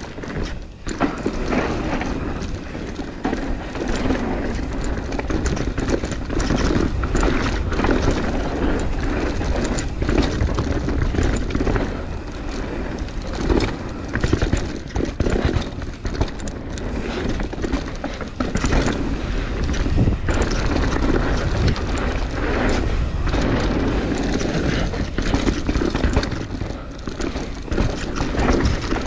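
Mountain bike ridden fast down a dirt trail: a continuous low rumble of wind on the microphone and tyres on dirt, with frequent knocks and rattles from the bike as it hits bumps and roots.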